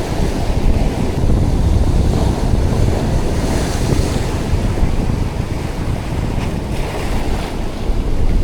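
Strong wind buffeting the microphone in a heavy, uneven rumble, over the hiss of surf breaking on the beach, with a wave washing in about three and a half seconds in.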